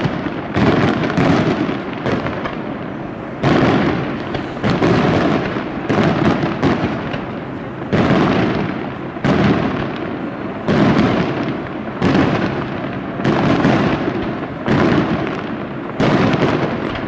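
Aerial firework shells bursting one after another in a continuous barrage, a loud bang every second or so, each trailing off in a rolling rumble before the next.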